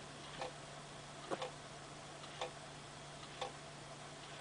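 1983 New Haven quartz wall clock movement ticking about once a second as its second hand steps.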